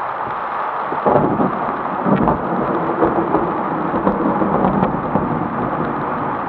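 Thunder during a heavy downpour, heard from inside a car: steady rain hiss, then a sudden rumble about a second in that swells again a second later and rolls on for a few seconds before fading back into the rain.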